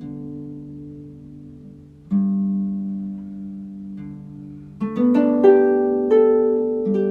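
Harp music: slow single plucked notes ringing and fading, then a quicker run of several notes about five seconds in.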